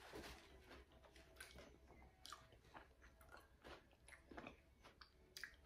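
Faint, irregular crunchy chewing: a person chewing a mouthful of chicken salad with chopped apple and walnuts.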